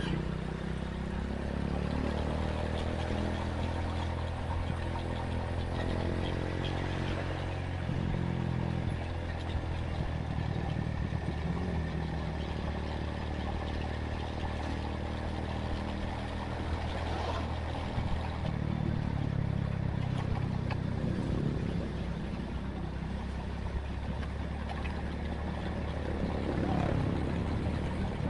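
Honda Tiger motorcycle's engine running steadily as the bike is ridden along a road, its pitch rising a few seconds in as it picks up speed.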